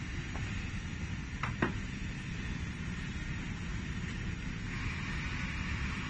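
Steady workshop background noise, a low rumble with a hiss, with a few light clicks about a second and a half in as the stripped multi-core cables are handled.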